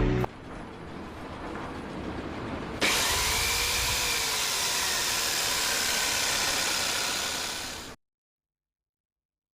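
Loud, steady machine noise with a faint motor whine that bends up and down. It starts suddenly about three seconds in and cuts off abruptly near the end. Before it there is a quieter, steady noise.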